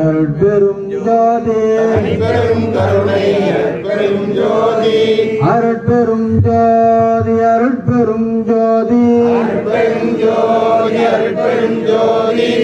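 A man chanting Tamil devotional verses from a hymn book into a microphone, amplified through a loudspeaker, with a steady drone held underneath.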